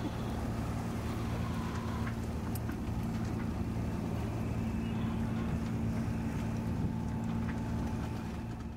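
Sailboat under engine: a steady low hum from its inboard engine running at a constant speed, over a haze of water and wind noise.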